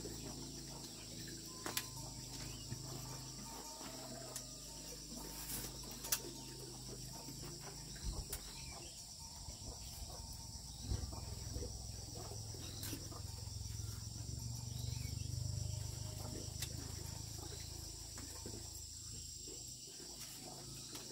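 Steady, high-pitched insect chorus of crickets, with a few scattered light clicks and knocks of split bamboo strips as they are bent and woven into a cylindrical fish trap.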